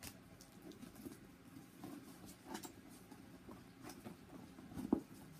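Small items being packed by hand into a Dooney & Bourke mini Kendall leather drawstring bag: soft rustles and light clicks, with one firmer knock near the end.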